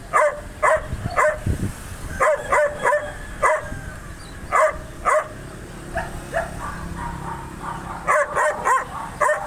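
A dog barking repeatedly and aggressively: short, loud barks in quick runs of two or three, with brief pauses between the runs.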